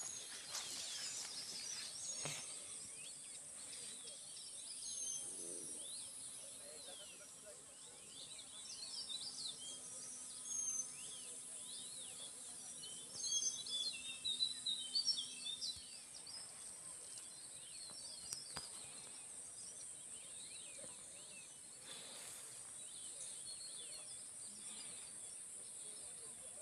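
Many small birds chirping and twittering, most densely midway, over a steady high insect hum.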